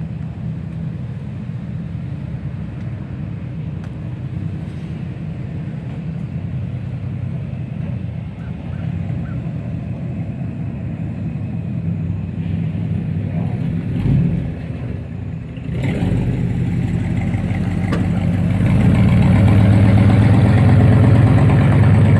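A car engine running steadily, with a short knock about 14 seconds in. It grows louder over the last few seconds as a mid-1960s Pontiac hardtop drives by.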